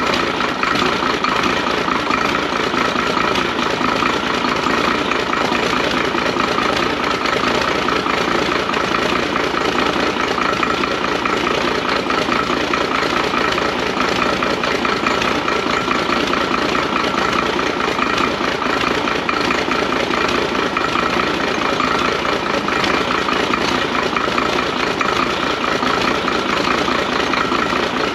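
Diesel engine running steadily at an even speed.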